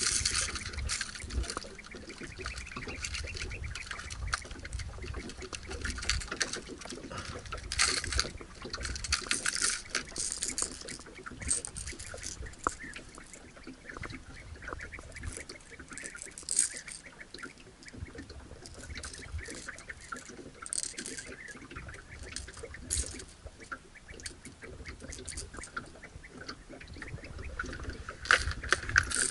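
Hard plastic fishing lures clicking and rattling against each other and against a clear plastic tackle box as they are picked through, in irregular bursts of small clicks.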